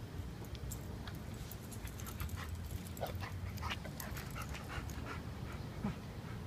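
Young dog panting in short, quick breaths.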